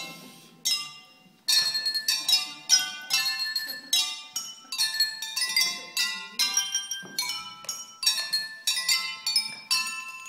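A glass orchestra of drinking glasses tuned with water, struck to play a tune: clear ringing notes, often several at once, each dying away. After a short pause about a second and a half in, a steady run of notes starts and carries on.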